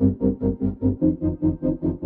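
Background music with a quick, even pulse of notes, about six a second.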